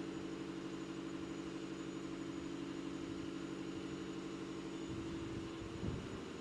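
Steady low mechanical hum made of several constant tones, like a motor or machine running, over faint hiss.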